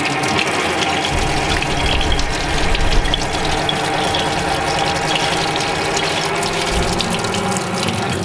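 Kitchen tap running hard into a stainless steel sink, the stream splashing off a plate held under it to rinse it.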